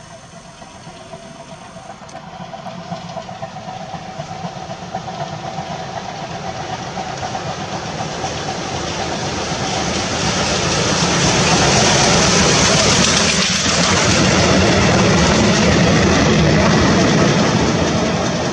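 TKt48 steam tank locomotive hauling a passenger train through a station at speed. Its exhaust and running gear grow steadily louder as it approaches and are loudest as it passes close, about twelve seconds in. The coaches then roll by.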